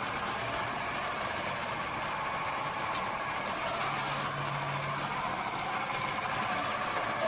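Swivel Sweeper G6 cordless rechargeable floor sweeper running, its small motor and four rotating brushes giving a steady hum.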